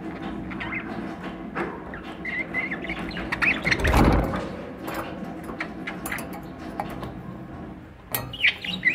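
Budgerigars chattering in a cage with soft warbles, chirps and clicks. There is a loud rustling thump close to the microphone about four seconds in, and a burst of sharp chirps near the end.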